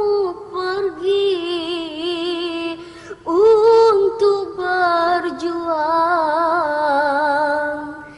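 A girl singing a slow, lullaby-like melody in long, wavering held notes without clear words, with a short break about three seconds in and fading near the end.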